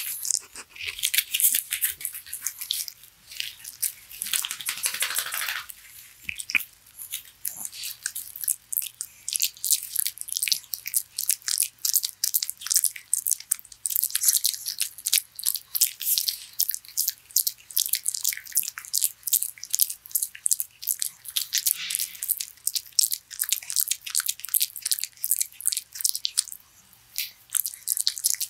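A small dog chewing and gnawing on a stringy dog chew held in its paws: a fast, irregular run of sharp crunching clicks close to the microphone. There is a brief, falling rush of noise about four to five seconds in.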